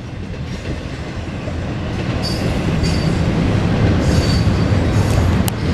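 Intermodal freight train cars rolling past, a heavy steady rumble of wheels on rail that grows louder. Three short, high-pitched wheel squeals break through about two to four and a half seconds in.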